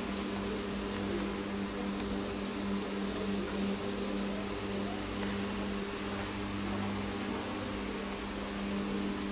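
Steady hum of a running electric fan motor: a low, even drone with fainter overtones above it over a background hiss.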